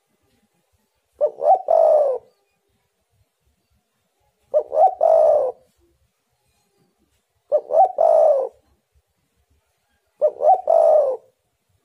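Spotted dove cooing: four calls about three seconds apart, each a couple of short notes running into a longer coo.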